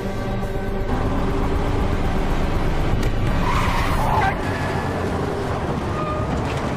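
Military jeep driving up with its engine running, then braking hard, its tyres skidding to a stop for about a second from three and a half seconds in.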